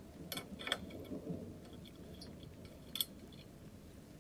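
A few sharp metal clicks and clinks from a small steel hand tool and the antique blowtorch's metal burner parts being handled, the loudest about three seconds in.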